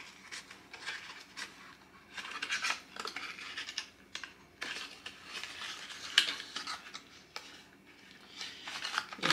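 Packaging rustling in irregular bursts as small products are handled, with a few light clicks and knocks of containers.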